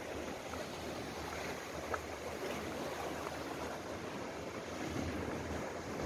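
Sea waves washing against shore rocks and concrete breakwater blocks, a steady rushing wash.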